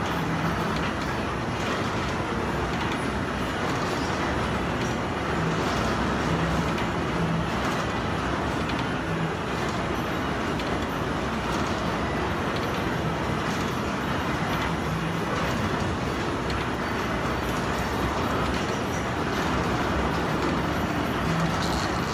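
Steady running noise of a carousel ride in motion, with a faint low hum that comes and goes.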